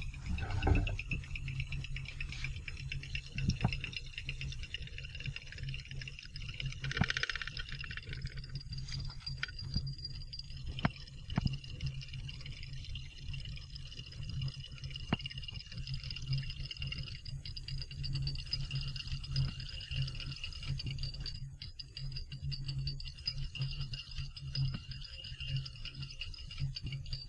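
Magnetic stir plate running with a steady low hum and a faint high whine, with scattered small clicks and taps as the buret stopcock and glassware are handled.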